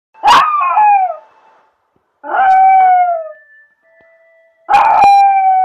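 Small black-and-tan dog howling: three separate howls about a second each, every one holding a clear note and sliding down in pitch at the end.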